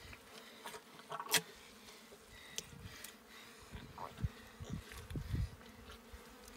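Faint buzzing of a flying insect, with scattered soft clicks and wet handling sounds from hands working inside a field-dressed axis deer's opened chest cavity.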